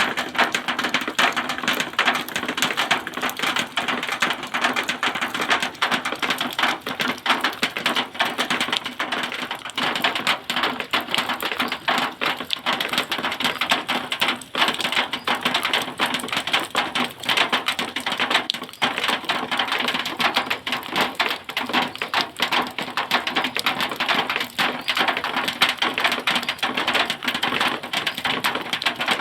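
Rain falling on zinc sheeting: a steady, dense patter of drops ticking on the metal.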